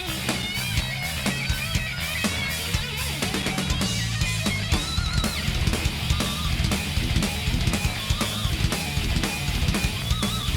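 Heavy metal music with distorted electric guitar, bass and a fast, steady drum kit beat.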